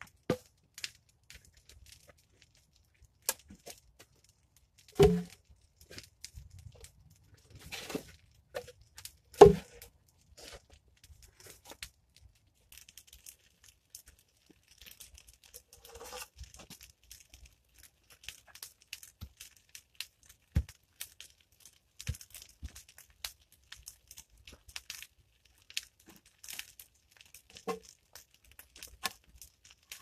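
Logs and wooden poles being handled: a few heavy wooden knocks, the two loudest about five and nine seconds in, then a long run of light scraping and crackling as poles are shifted and leaned against a pole frame.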